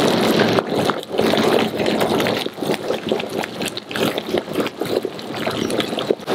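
Water at a rolling boil in a large stainless steel stockpot, bubbling and churning unevenly, with a lobster blanching in it.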